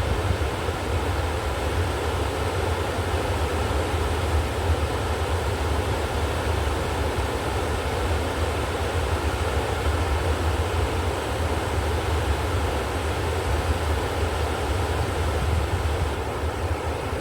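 River water rushing: a steady, unbroken noise with a deep low rumble underneath.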